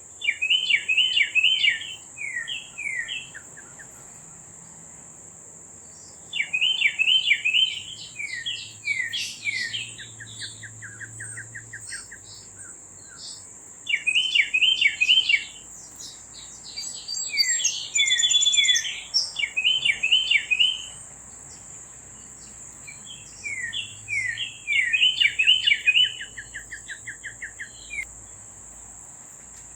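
A songbird singing the same phrase of quick descending whistled notes five times, some phrases running into a fast trill. A steady high-pitched drone runs underneath.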